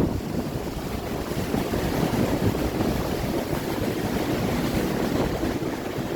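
Riding aboard a river passenger boat under way: a steady rush of engine and water noise, with wind buffeting the microphone.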